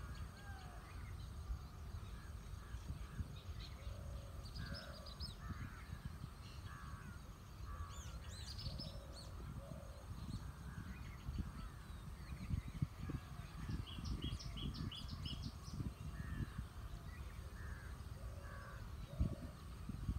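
Wind buffeting the microphone with a gusty low rumble, and several birds calling throughout: repeated short lower-pitched calls, and a few runs of quick high chirps.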